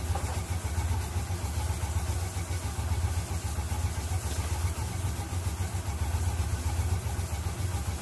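Motorcycle engine of a tricycle idling steadily with an even low putter.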